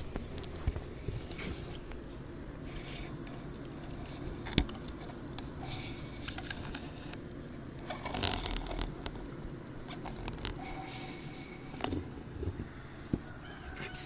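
Bees in a hive humming low and steady, with frequent small clicks and scrapes over it, a sharp click about four and a half seconds in and a louder scraping cluster around eight seconds in.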